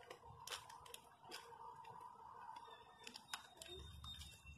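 Faint handling of a freeze-dried ice cream bar's wrapper as it is opened by hand: soft rustling with a few sharp little ticks and rips.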